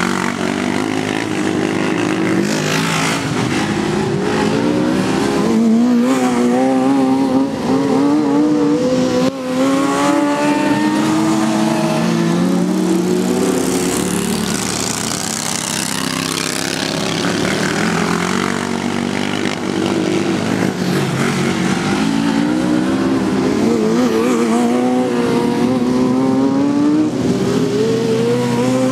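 Engines of several racing ride-on lawn mowers, revving up and down together, each pitch rising and falling repeatedly as the riders work the throttle.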